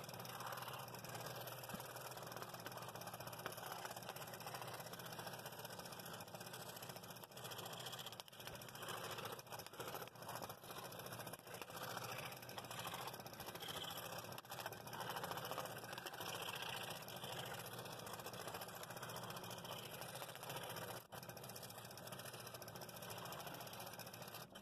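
Scroll saw running steadily, its reciprocating blade cutting through thin plywood.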